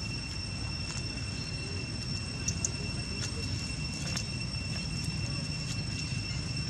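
Steady insect drone, a high, even tone running throughout, over a low rumble of outdoor background noise, with a few scattered faint clicks.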